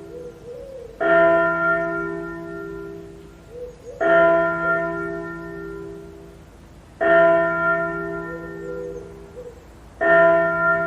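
A bell tolling: four strokes about three seconds apart, each ringing out and slowly fading before the next.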